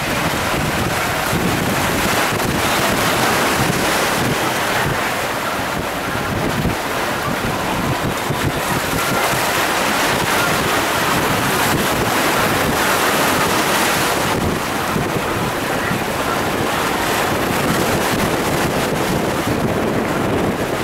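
Wind blowing on the microphone over the steady wash of sea surf.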